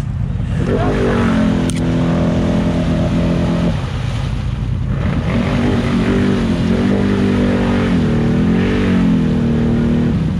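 ATV engine revving: it climbs about a second in and holds high for about three seconds, drops off, then revs again from about five seconds in with the pitch rising and falling until near the end. A steady low rumble runs underneath.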